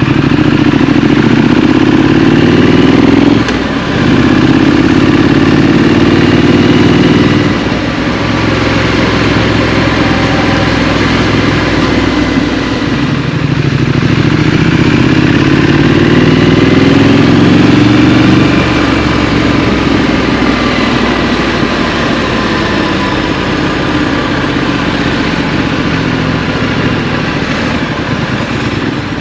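Scrambler motorcycle engine pulling hard, its note rising and dropping twice in quick succession as it shifts up through the gears. It pulls up again in the middle, then settles to a lower, steadier run.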